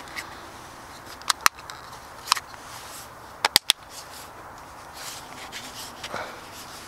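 Plastic weatherproof cord connector housing being snapped shut around a plug connection: a handful of sharp plastic clicks, the last few in quick succession.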